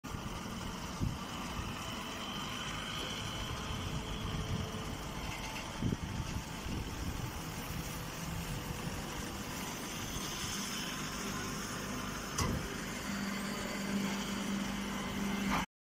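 Baling machinery running steadily, with a few sharp knocks scattered through it and a steady hum that comes in near the end.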